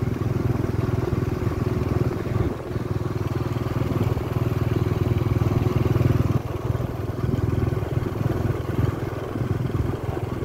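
Steady engine drone and road noise from a moving vehicle, heard from on board. It builds for the first half, then eases off a little past halfway as the vehicle slows toward a traffic light.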